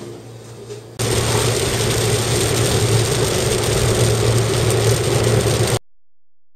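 Car driving along a highway, heard from inside the cabin: a steady low engine hum under even road and tyre noise. It starts about a second in and cuts off abruptly near the end.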